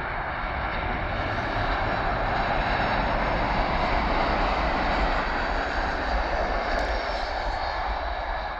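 Boeing 737-700's CFM56-7B jet engines passing close on landing, a steady jet noise that swells to its loudest about halfway through, as the airliner flares over the runway, then eases a little.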